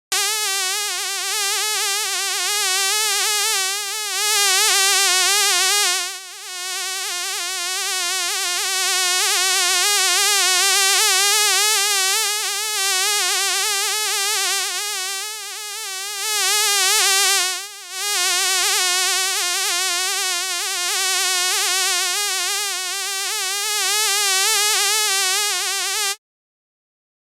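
A fly buzzing steadily with a quickly wavering pitch, growing louder and softer several times as if flying close and away, with two brief dips, then cutting off about a second before the end.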